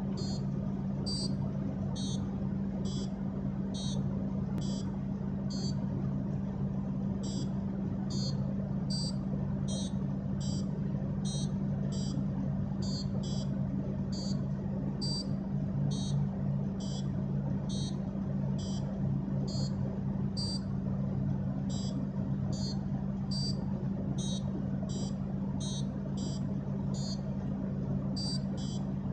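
A homemade Simon Says game circuit's buzzer sounds short, high electronic beeps, about one and a half a second with a few brief pauses, as the game plays and its touch pads are pressed. A steady low hum runs underneath.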